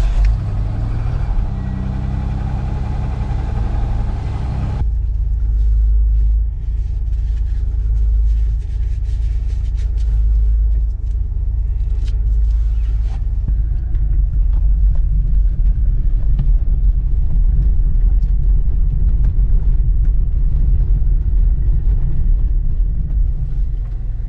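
Citroën XM engine just started and running, a steady low rumble. About five seconds in, the higher part of the engine note drops away, leaving a deep rumble.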